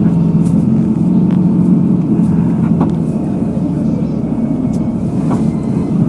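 Motor vehicle engine running with a steady low rumble and hum, with a few faint clicks.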